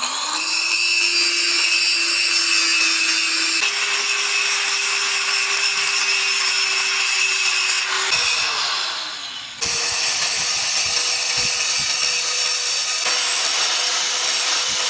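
Electric power tool working metal, running steadily with a hissing, grinding noise over a constant hum. The hum jumps to a slightly higher pitch a few times at abrupt breaks, with a short drop in level a little after the middle.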